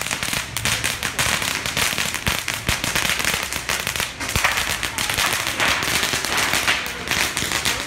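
Firecrackers going off on the street pavement: a rapid, unbroken crackle of small bangs.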